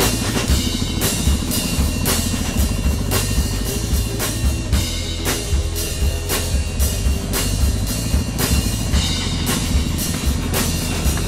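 Rock music with a steady drum-kit beat and bass.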